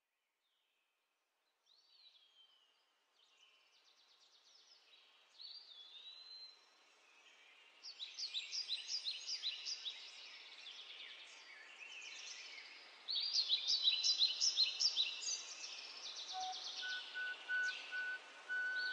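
Birds singing: scattered chirps and whistled glides, then bursts of rapid repeated trills about eight and thirteen seconds in, over a light steady hiss. Near the end a steady held note comes in beneath the birdsong.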